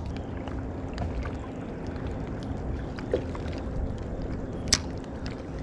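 Electric trolling motor humming steadily as it holds the boat on spot lock against the river current, over a low wash of water and wind noise, with one sharp click near the end.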